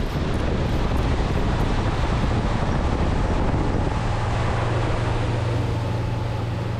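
Outboard-powered boat running at speed across open water: wind rushing over the microphone and water hissing from the wake, with a steady low engine drone coming through about two-thirds of the way in.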